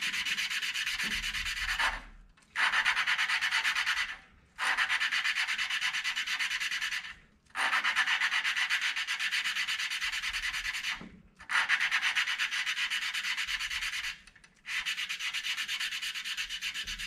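Tecumseh snowblower engine's exhaust valve being lapped against its seat with valve grinding compound, the suction-cup lapper spun rapidly back and forth between the palms: a fast, gritty rasping rub that comes in spells of a few seconds with five short breaks. The compound is wearing in and the rub has gone a little smoother, a sign the valve face is starting to seat.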